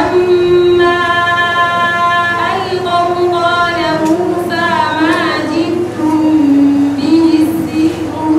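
A woman's voice reciting the Qur'an in a melodic, chanted style: a long held note near the start, then wavering, ornamented turns of pitch.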